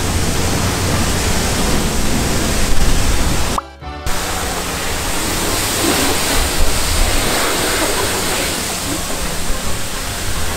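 Steady hissing rush of high-pressure water spray from a self-service car wash wand, broken by a brief drop about three and a half seconds in.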